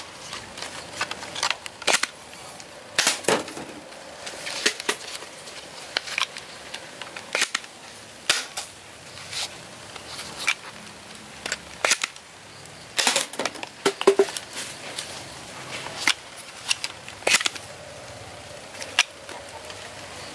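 Nerf Mega Talon foam-dart blaster being loaded, primed and fired: an irregular string of sharp plastic clicks, clacks and snaps, with darts knocking plastic bottles over.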